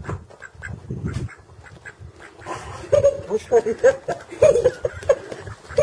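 Mallard drake calling in a quick run of short quacks, about two to three a second, starting about two and a half seconds in.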